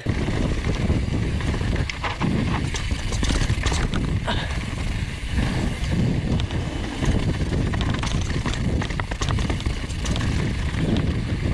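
Downhill mountain bike riding fast down a trail, heard from a helmet-mounted camera: steady wind rumble on the microphone, with tyres crunching over dirt and a constant scatter of clatters and knocks as the bike rattles over wooden boards and rocks.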